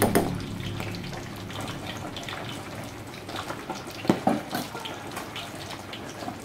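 Broth bubbling steadily in an aluminium pot on a gas stove, a fine continuous crackle of boiling liquid, with a brief louder knock about four seconds in.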